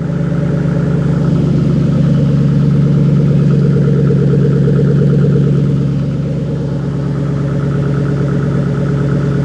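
Ford Mustang's overhead-cam V8 idling steadily soon after a cold start. It gets a little quieter about six seconds in as the cold idle begins to settle.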